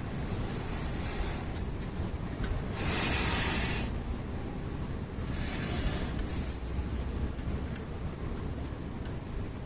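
Wind rumbling on the microphone, with two short bursts of rasping, rubbing noise, the louder one about three seconds in.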